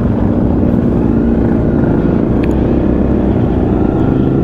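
Honda CRF250 Rally's single-cylinder engine running steadily at low speed in slow traffic, with a low rumble underneath.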